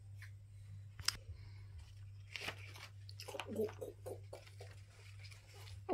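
Plastic toy bunnies and a toy feeding bottle being handled: a sharp click about a second in, then soft scattered rustles and taps, over a steady low hum.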